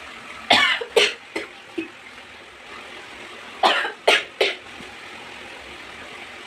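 A woman coughing in two fits, about four coughs and then three more, brought on by the fumes of dry red chillies roasting in oil.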